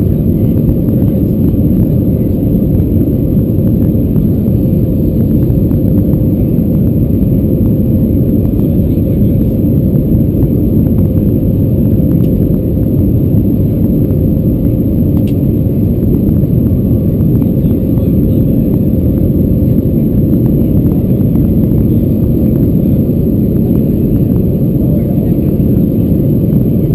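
Steady low rumble of engines and airflow inside the cabin of an Airbus A320-214 climbing after takeoff, with its CFM56 engines at climb power. A faint steady tone runs through the noise.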